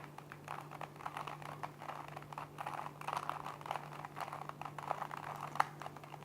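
A 3x3 Rubik's cube's plastic layers being turned quickly by hand in the last-layer formula that finishes the solve: a fast, irregular run of clicks and rattles, with one sharper click about five and a half seconds in.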